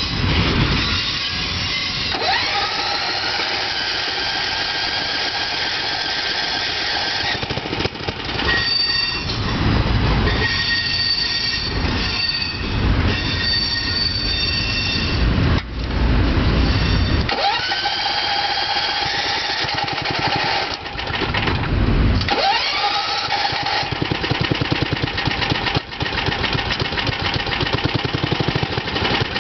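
Riding-mower-based lawn cart running as it is driven, its engine speeding up about three times. High whining tones rise with each speed-up, over the steady sound of the engine and drive.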